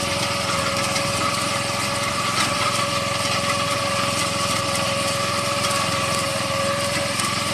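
Small engine of an improvised soybean-cutting machine running steadily at a constant speed, with a steady whine.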